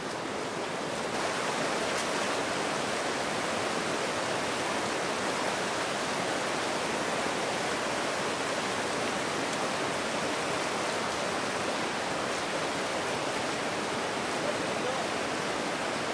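A clear, shallow river running over a stony bed: a steady rush of water that gets a little louder about a second in and then holds.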